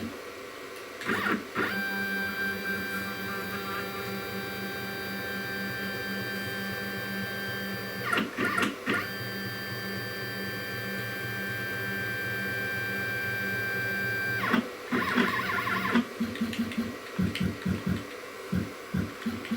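CNC router's stepper motors whining steadily as the machine is jogged into position. There are two long moves, broken by a few short clicks about eight seconds in, then a string of short stop-start jog pulses in the last few seconds.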